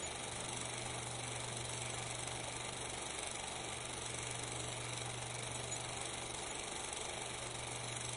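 Steady hiss with a constant low hum, the background noise of an old 16 mm film's sound track, with no distinct events in it.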